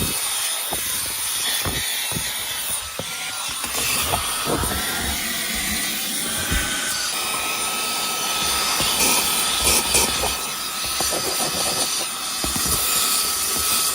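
Cordless handheld car vacuum with a brushless motor running, a steady high whine over rushing air, with irregular knocks and clatter as it is worked over surfaces picking up dirt.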